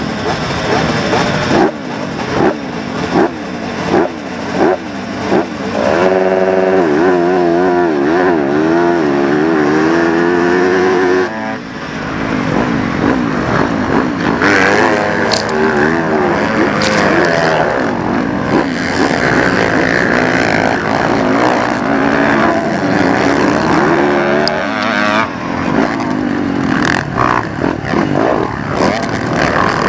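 A pack of motocross bikes at the start: engines blipped repeatedly, about once a second, then held at high revs, wavering, for several seconds. About eleven seconds in the sound changes suddenly as the bikes launch, and engines run hard under load for the rest of the time.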